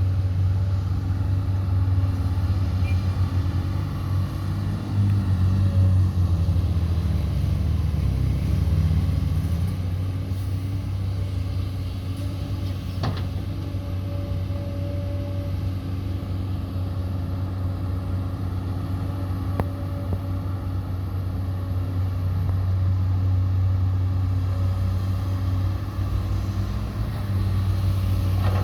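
Truck engine running with a steady low rumble; two faint clicks, the first about halfway through.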